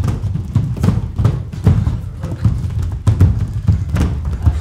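A group of barefoot people stamping and marching in step on a studio floor: a steady rhythm of heavy thuds, about two to three a second.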